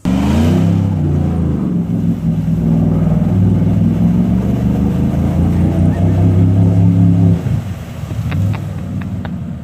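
A vehicle engine comes in suddenly and revs up, then holds a steady high-rev note. About seven and a half seconds in it drops to a lower, quieter run.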